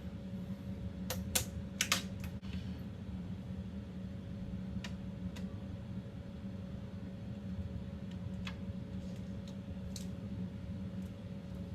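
Light clicks and taps from hands working on the receiver cabinet while fitting vinyl veneer: a quick cluster about a second in, then a few scattered ones. A steady low hum runs underneath.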